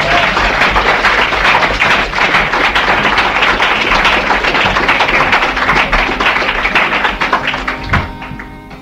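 Audience applauding with dense clapping that dies away about eight seconds in, after which a few quiet acoustic guitar notes sound.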